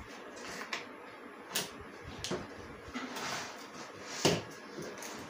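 Handling noises as solar panels and their cable are moved about: a few sharp knocks, the loudest a little past four seconds in, with a brief rustle around three seconds in.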